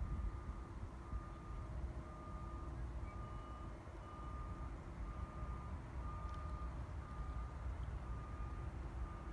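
Vehicle reversing alarm beeping steadily about once a second, each beep a single high tone, over a continuous low rumble.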